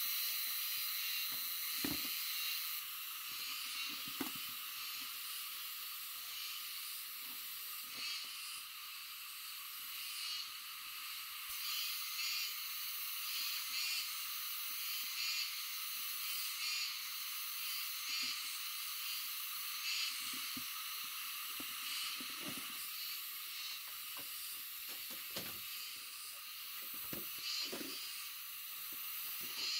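Scattered soft knocks and scuffs from handling a woven bamboo basket and pulling on rubber boots, over a steady high hiss.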